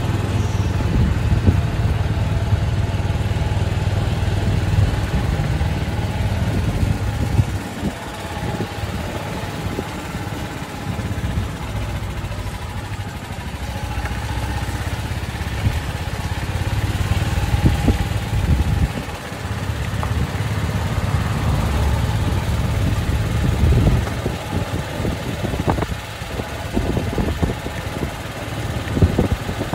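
A small vehicle's engine running steadily as it drives along, its hum easing off briefly a couple of times.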